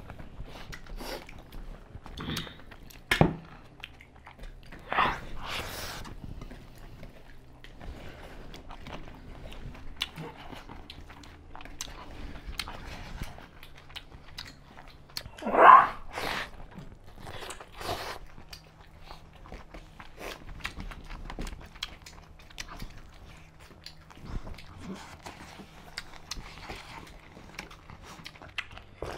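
Close-up eating sounds: chewing and crunching of food, with small clicks of fingers and food on steel plates. One brief louder sound comes just past halfway.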